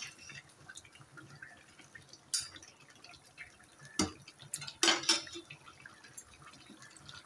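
Metal spatula clinking and scraping against a steel karahi a few times, loudest about four to five seconds in, over faint bubbling as chicken simmers in water and oil.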